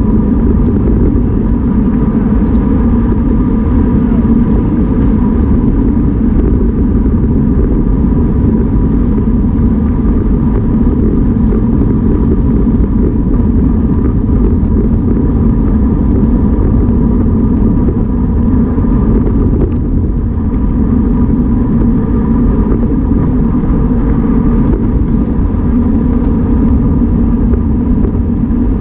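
Wind rushing over the microphone of a bicycle-mounted camera at racing speed: a loud, steady rumble that does not let up. A faint steady whine sits above it.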